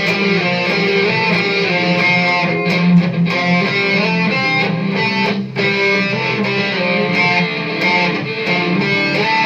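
Electric guitar played through an A8 wireless guitar transmitter into an amplifier, playing a song with a run of changing notes; the wireless link is carrying the signal cleanly.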